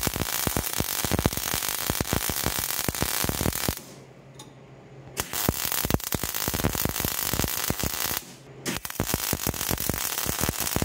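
Millermatic 35 MIG welder arc crackling steadily while laying a weld, on a setting that needs more heat. The arc stops twice, for about a second and a half around four seconds in and briefly near eight seconds, leaving only a low hum.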